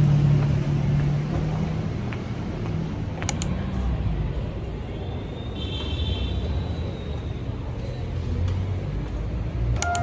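Outdoor traffic noise: a vehicle engine running steadily with a low hum, then, after an abrupt change about three seconds in, a low rumble of road traffic with a brief faint high-pitched tone a little past the middle.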